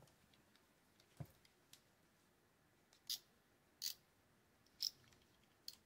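A handful of short, sharp clicks about a second apart, the first with a soft thump, as a Shimano TLD 30 two-speed lever-drag fishing reel is handled and turned over.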